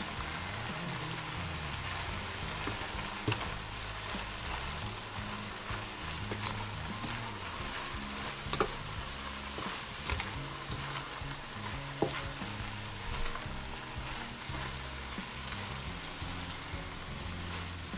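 Chopped cabbage and chicken gizzards sizzling in a nonstick pot as they are stirred with a silicone spatula, with a few sharp light knocks of the spatula against the pot.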